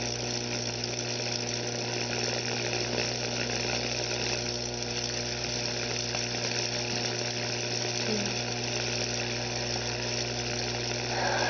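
Steady high-voltage electrical buzz from a 15,000-volt arc burning through a chicken egg, with a fine crackle as the current shorts through the egg's cooked contents.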